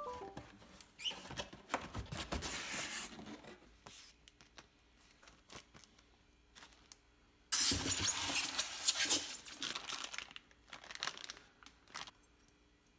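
Clear plastic packaging bags crinkling and rustling as they are handled, with light clicks and knocks. It comes in two main bursts, the louder one starting about seven and a half seconds in.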